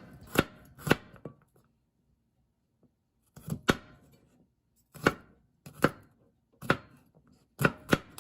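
Kitchen knife slicing garlic cloves into thick slices on a cutting board: about ten separate sharp knocks of the blade on the board, irregularly spaced, with a pause of about two seconds after the first three.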